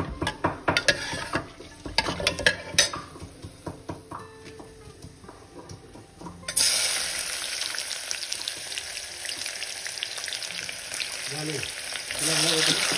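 A ladle clicks against a steel pressure cooker while whole spices are stirred in hot oil. About six and a half seconds in, chopped onions go into the oil and it breaks suddenly into a steady sizzle, which grows louder near the end.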